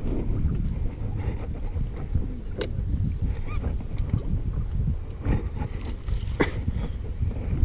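Wind buffeting the microphone in a steady low rumble, with a few sharp clicks, the loudest about two and a half seconds in and again near six and a half seconds.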